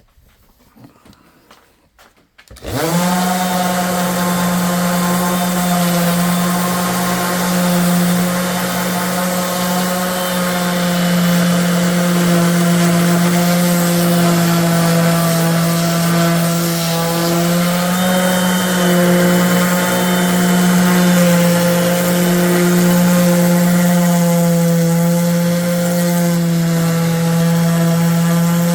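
Electric power sander starting up about two and a half seconds in and running steadily against wood edges, a loud even motor hum that dips slightly in pitch now and then as it is pressed to the work.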